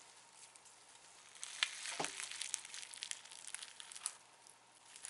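Slime with beads in it being poked and squished by hand, giving a run of small crackling pops and clicks from about a second and a half in until about four seconds in.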